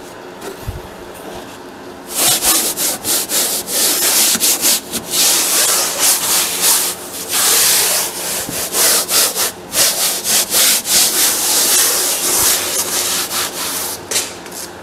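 Repeated rubbing and scraping strokes on wood, starting about two seconds in and going on for some twelve seconds, as a fabric-covered panel is worked into the bottom of a wooden tray.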